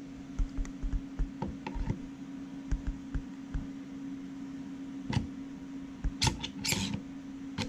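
Light clicks, taps and scrapes of small parts handled by hand as a router's sub-base plate is fitted back on and screwed down, with a few sharper clicks in the second half over a steady low hum.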